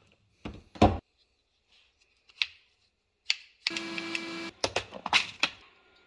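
Sharp knocks and clicks of hard plastic latch parts being handled and set down on a wooden workbench, the loudest just before a second in, with a short rattling scrape about four seconds in.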